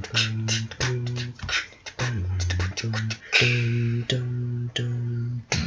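A person beatboxing: a regular rhythm of low hummed bass notes, each held for about half a second, alternating with sharp mouth clicks and hisses.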